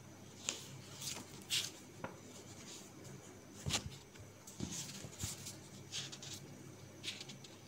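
Paper rustling and light taps as the pages of a textbook are handled and turned, in about a dozen irregular short brushes.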